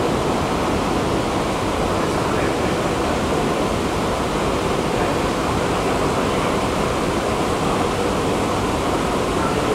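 Subway-station escalator running, heard while riding it: a steady, even mechanical noise from the moving steps and drive, unbroken throughout.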